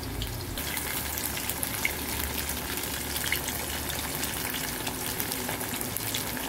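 Tofu frying in hot oil: a steady sizzle thick with small crackles and spits, which grows louder about half a second in.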